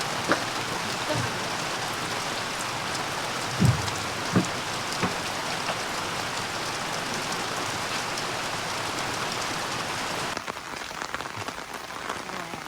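Steady rain falling, an even hiss with a few short knocks, the loudest about three and a half seconds in. Near the end the hiss turns quieter and patchier.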